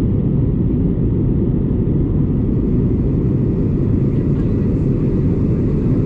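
Steady low rumble of a jet airliner's cabin in flight: engine and airflow noise heard through the fuselage, unchanging throughout.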